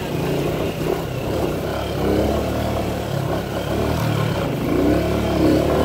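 Small motorcycle engine running under the rider, its note rising and falling with the throttle as it is ridden slowly over a rutted sandy dirt road.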